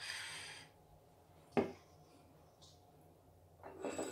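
Quiet kitchen handling sounds: a brief hiss as the plate of ingredients is moved, a single sharp click about a second and a half in, then the clink of utensils against dishes starting near the end.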